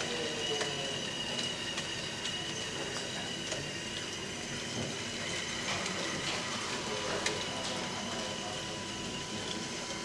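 Radio-controlled Liebherr 956 model crawler excavator running, its hydraulic pump and motors giving a steady high whine as it tracks over dirt. Scattered clicks come from the tracks, one louder a little after seven seconds in.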